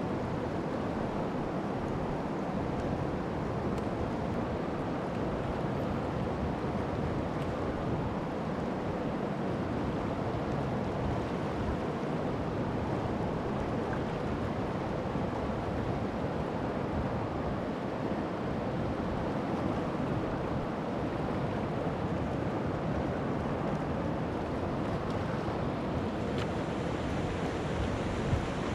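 Steady rushing of river rapids, an even hiss of fast water that does not let up.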